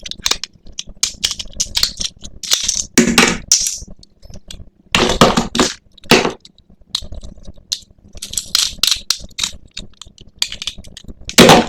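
Toy packaging being handled and opened: irregular bursts of crinkling, crackling plastic, several seconds apart, with scattered sharp clicks between them.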